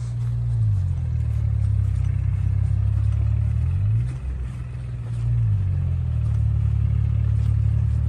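Diesel tractor engine labouring close by at low speed on a dirt track. Its engine speed rises shortly after the start, falls about four seconds in and picks up again a little later.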